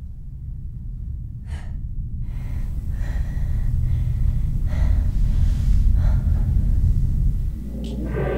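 Horror-film sound design: a deep rumbling drone that swells steadily louder, with breathy gasps over it. Near the end the rumble drops and a sustained, gong-like ringing chord comes in.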